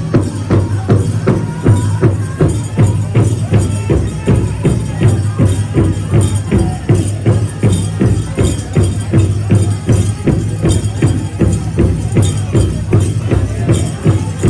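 Powwow drum group: a big drum struck by several drummers in a steady, even beat, with singers' voices over it.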